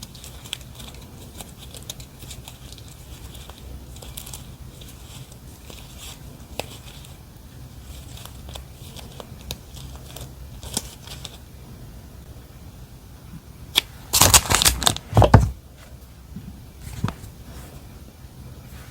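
Stationery and its packaging handled close to the microphone: scattered light taps and rustles, then a loud burst of crinkling about fourteen seconds in that lasts about a second and a half, and a shorter, softer one a little later.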